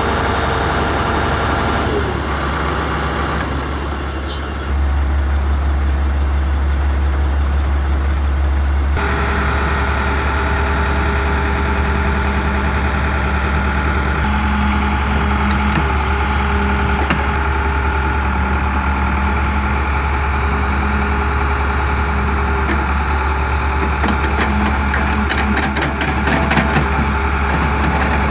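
Engine of a work vehicle idling steadily, with a run of light clicks and taps near the end.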